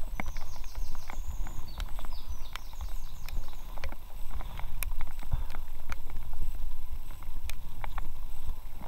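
Paddling an inflatable kayak: irregular sharp knocks and clicks of the paddle against the boat and water, over a low rumble. A songbird sings a short descending trill twice, near the start and about three seconds in.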